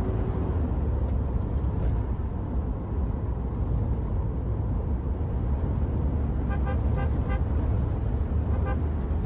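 Steady low rumble of a car's engine and tyres heard from inside the cabin, with a run of several short horn toots about two-thirds of the way through and one more near the end.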